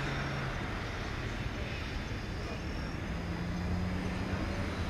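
Boeing 777-300's twin jet engines at takeoff power as the airliner climbs away: a steady rumble with low droning tones. The tones shift in pitch partway through.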